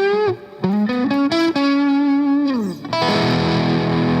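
Electric guitar through a Boss Blues Driver BD-2 overdrive pedal with its gain at 12 o'clock: a single-note blues lick with string bends and a slide down, then a chord struck about three seconds in and left ringing.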